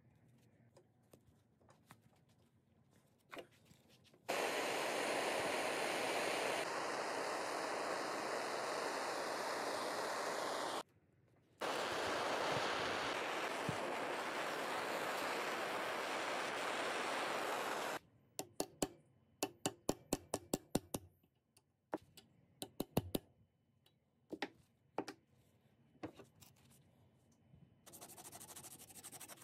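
Two long stretches of loud, steady hissing noise that start and stop abruptly. Then a quick run of sharp metallic taps and clicks from the wire being worked in a bench vise, and near the end a rubbing scrape as the bent wire end is filed with an abrasive sheet.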